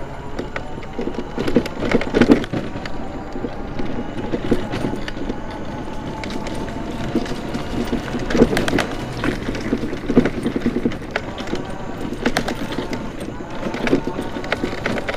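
Scooter riding along a concrete trail, knocking and rattling irregularly over the bumps and slab joints, with a faint steady motor whine.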